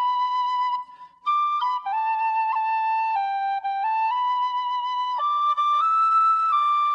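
Background music: a slow solo flute melody of held notes stepping up and down, with a brief break about a second in.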